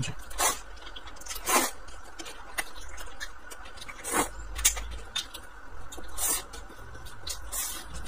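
A person eating glass noodles: several short, wet slurps with mouth smacks between them.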